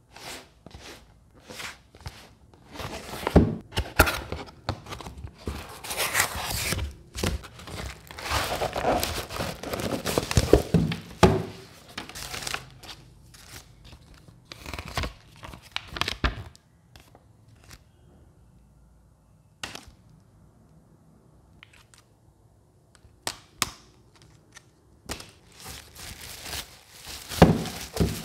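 Unboxing handling noise: a cardboard box opened and handled, with paper and a soft plastic wrapping rustling and crinkling, and irregular knocks as items are set down on the table. The rustling is heaviest in the first half, with a quieter lull about two-thirds of the way through.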